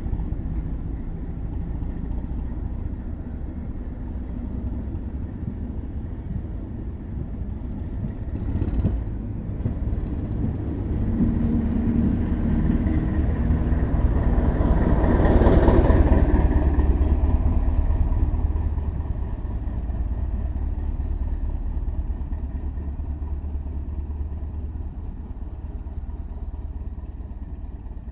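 NIR 80 Class diesel-electric multiple unit pulling away past the platform: a low diesel engine rumble with wheel and running noise, loudest about halfway through as the train goes by, then fading as it draws away. One brief knock sounds about a third of the way in.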